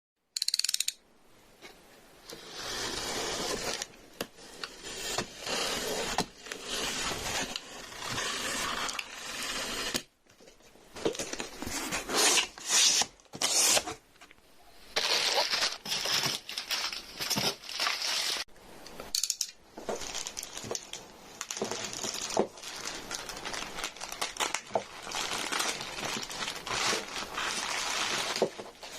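Cardboard box and plastic packaging being opened and handled: tearing, crinkling and scraping in irregular bursts, broken by a few short pauses.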